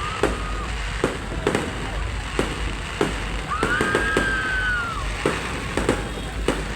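Fireworks display: repeated sharp bangs of bursting fireworks, one every half second to a second, with a high whistling tone for about a second and a half near the middle.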